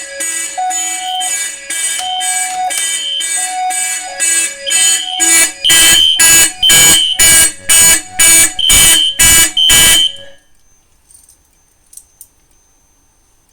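Fire alarm horns sounding in rapid repeated blasts after a manual pull station has put the panel into alarm. About five seconds in they grow louder, at roughly two blasts a second. Near ten seconds they stop suddenly, followed by a couple of faint clicks.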